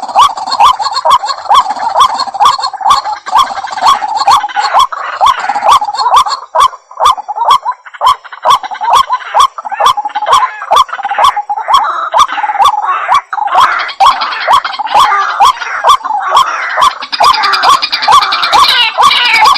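Waterhen calling: a fast, steady series of short repeated notes, about two to three a second, each starting with a sharp click.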